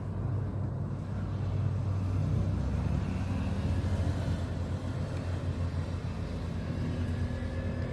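Steady low rumble and hum, with no distinct strokes or clicks.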